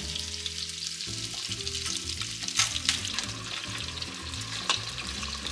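Pieces of eel frying in hot oil in a frying pan, with a steady sizzle and crackle and a few louder pops spattering through it.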